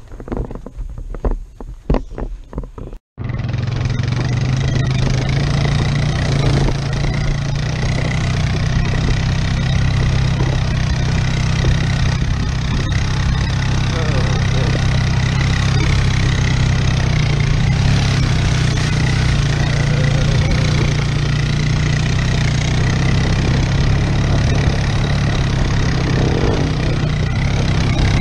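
ATV engine running steadily at a constant pull while towing a dirt bike on a strap, heard from the towed bike with wind and tyre noise. A few scattered knocks and clicks come before it, then the sound cuts out briefly about three seconds in.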